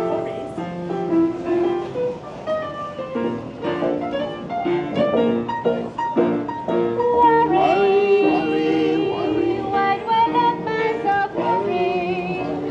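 Upright piano played live on a pedal-driven tricycle piano cart: a tune of held notes and chords. About eight seconds in, a wavering, sliding melody line sounds over it for a second or two.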